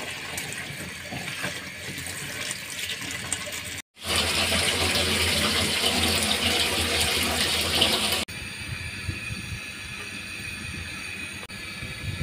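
Tap water running onto cut pointed gourd pieces in a plastic colander in a steel sink. After a short break about four seconds in, a louder rushing noise lasts about four seconds, then gives way to a quieter steady hum.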